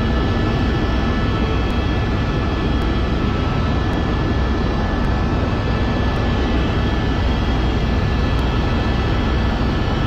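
Helicopter in flight heard from inside the cabin: a loud, steady drone of engine and rotors, heaviest in the low end, with a few thin steady whines over it.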